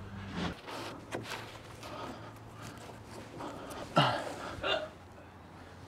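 Light knocks and scrapes of a heavy two-ply LVL ridge beam being pushed and hauled up into place, with a couple of short grunts of effort about four seconds in.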